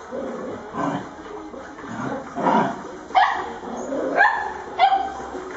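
Small dogs barking and yipping in play, a short sharp bark about once a second.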